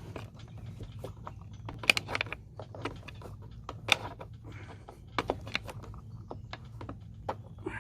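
Irregular light clicks and taps of a hand tool and hard plastic parts being handled while a fastener on a leaf blower is tightened back up, with a few sharper clicks about two and four seconds in.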